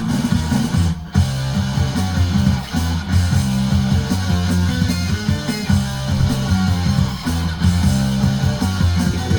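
Loud rock music with guitar, playing without a break.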